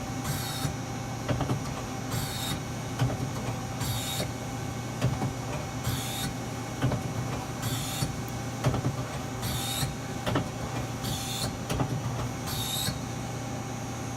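Mazak SQT 18MS CNC lathe turret indexing from station to station, again and again, about every one and a half to two seconds. Each index gives a short hiss with clicks, over the machine's steady hum.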